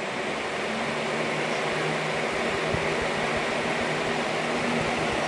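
Box fan running: a steady rush of air with a low motor hum, growing louder over the first couple of seconds and then holding steady.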